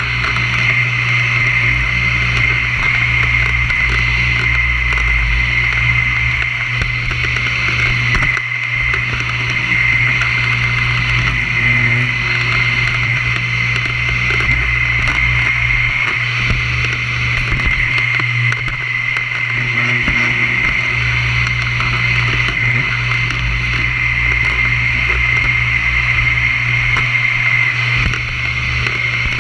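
Vacuum cleaner running steadily, its motor giving a constant high whine over a low hum.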